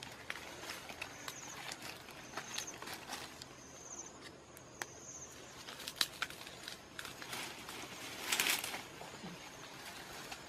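Leaves rustling and twigs snapping as a bundle of fresh green leaves is handled and pushed into a bush, with a louder burst of rustling about eight seconds in. A short high trill repeats a few times in the first half.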